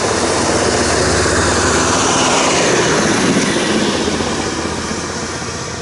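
Lanka Ashok Leyland bus driving past close by, its diesel engine and tyre noise loudest in the first half and then fading, with a falling pitch as it goes by.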